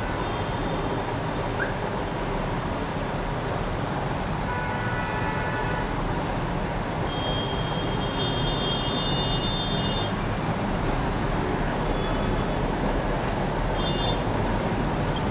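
Steady background noise of road traffic, with a few faint high-pitched tones coming and going.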